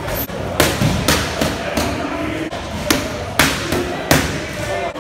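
Boxing gloves striking handheld focus mitts: a series of sharp smacks in quick combinations of two or three, with short pauses between them.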